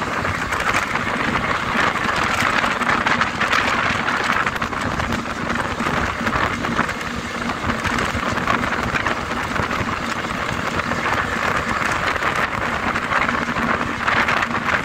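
Steady rush of wind and road noise from a bus travelling at speed, heard at an open side window, with a low steady hum underneath.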